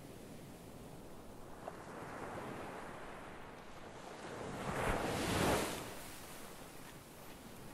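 Ocean waves washing gently, one wave swelling louder about five seconds in before falling back.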